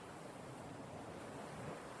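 Faint steady background hiss with no distinct event.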